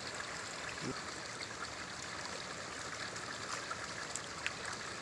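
Steady running water, with small splashes from koi crowded in a net and hands working among them in shallow pond water.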